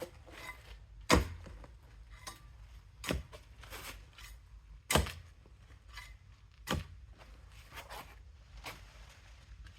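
A spade striking and scraping into soil, with sharp knocks a little under two seconds apart and smaller scrapes between.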